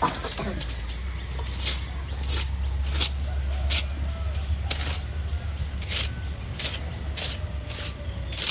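Short, regular swishes of a hand broom of bound stalks brushing across a grave's mat, about three strokes every two seconds, over a steady high drone of insects.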